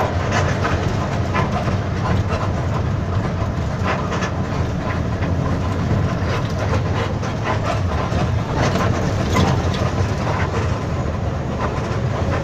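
Intercity bus heard from inside the cabin while driving: a steady low engine and road rumble, with irregular rattles and knocks from the bus body.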